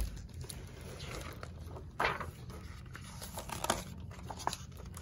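Hardcover picture book being opened and its pages turned by hand: paper rustling and crinkling in a few separate strokes, the loudest about two seconds in.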